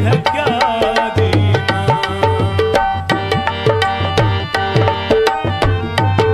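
Tabla and harmonium playing an instrumental passage of Punjabi folk music, with a fast run of drum strokes and bass strokes that bend upward in pitch under held harmonium notes.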